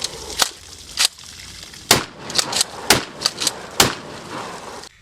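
A string of about nine gunshots at uneven spacing, some closer together than others, then the sound cuts off suddenly near the end.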